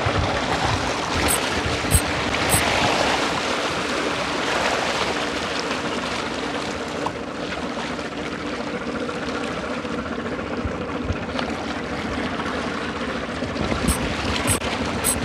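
Sea water washing and lapping at the shore, steady throughout, with a low drone underneath. A few short high ticks come near the start and again near the end.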